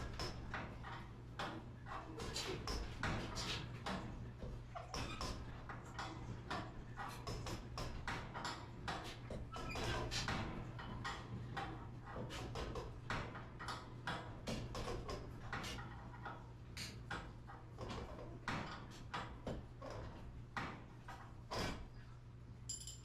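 Steel winding bars clicking and knocking in the winding cone of a garage door torsion spring as it is backwound to release its tension: many irregular metallic clicks and knocks over a steady low hum.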